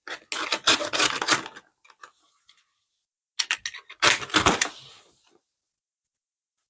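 Snap-off utility knife slitting the packing tape on a cardboard box: two bursts of scratchy, clicking rasping, about two seconds apart.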